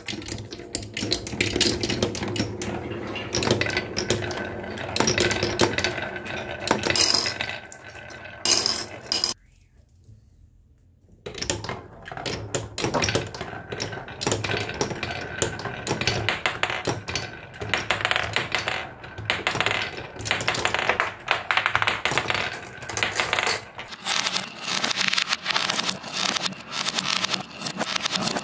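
Marbles rolling and clacking down a wooden marble run: a dense stream of clicks and knocks as they run along wooden tracks, drop through wooden blocks and hit each other. The sound stops for about two seconds around ten seconds in, then the rolling and clacking start again.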